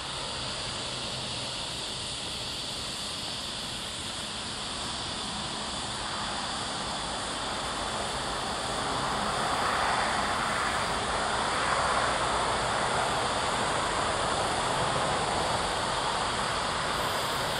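Steady distant rushing noise of a passing vehicle, slowly growing louder about halfway through and then holding.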